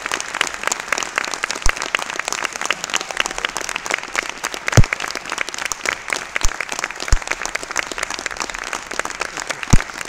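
Audience applauding: dense, steady clapping, with a few louder single claps close by, one about five seconds in and one near the end.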